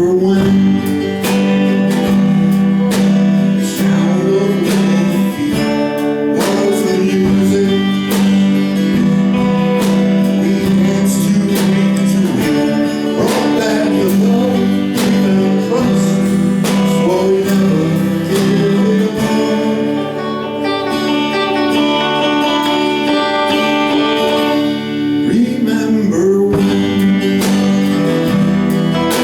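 Live band playing a country song, led by a strummed acoustic guitar.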